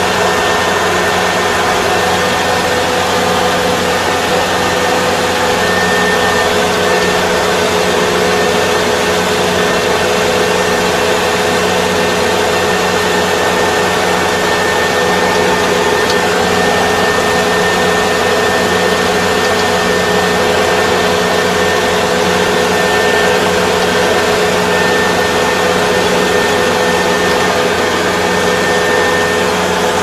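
Rice combine harvester running steadily under load while cutting rice, heard from the operator's cab: a constant machine hum with a steady whine layered over it.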